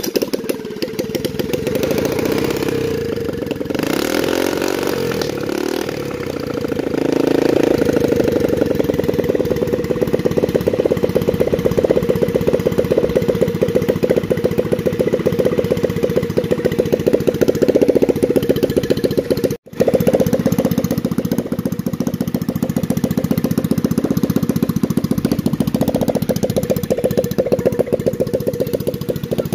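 Freshly rebuilt 110cc single-cylinder four-stroke step-through motorcycle engine with an open pod air filter, on a test run. It catches right at the start, is blipped up and down over the first several seconds, then runs steadily at a fast idle with an even pulsing beat, with a brief cut about two-thirds of the way through.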